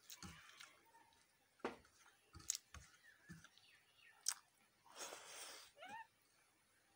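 Quiet eating by hand: fingers squeezing rice and food against a stainless steel plate, and chewing, with a few sharp clicks. A brief hiss comes about five seconds in, followed by a short rising squeak.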